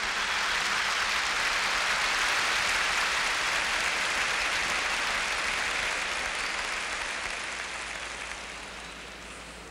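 Audience applause, steady and then gradually fading over the last few seconds.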